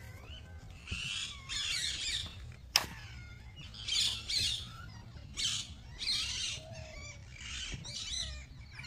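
Birds calling in repeated squawky, chirping bursts, with one sharp click about three seconds in.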